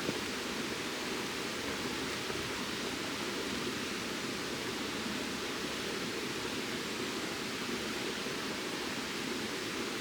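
Steady, even rushing background noise that does not change.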